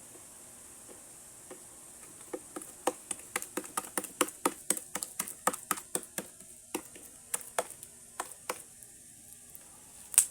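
Sticky homemade glue slime being kneaded and pulled in the hands, making quick wet clicks and snaps, about three to four a second from about two seconds in, then fewer towards the end. The stickiness is a sign the slime is under-activated and needs more activator.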